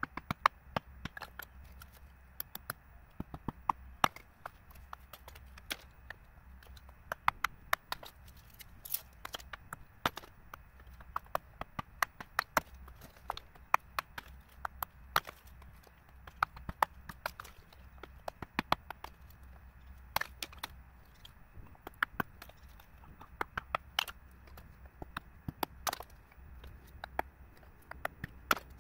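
Hammer and chisel striking wood: sharp, irregular knocks and cracks, sometimes several a second in bursts, with short pauses between.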